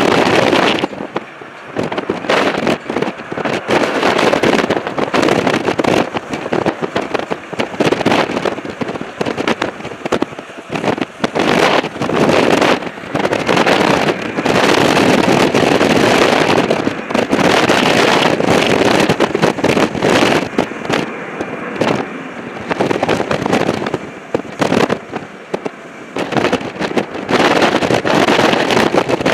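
Airbus A319 jet engines roaring at takeoff thrust as the airliner rolls away down the runway, with heavy wind buffeting on the microphone that makes the level surge and drop abruptly.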